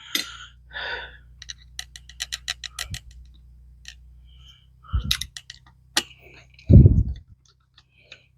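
Small metal clicks and a quick run of about a dozen ticks as screws are fitted into an SU carburettor by hand. Two duller, louder knocks come later, the loudest near the end.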